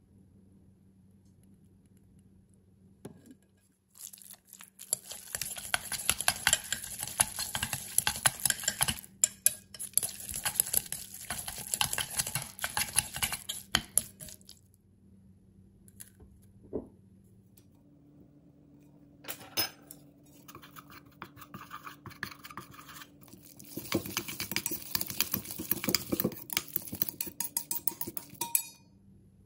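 Pork and ginger being stirred vigorously in a stainless steel bowl, working the soy-sauce marinade into the meat: a utensil rapidly scrapes and clicks against the metal sides. It comes in two spells of about ten seconds each, with a pause of a few seconds between them.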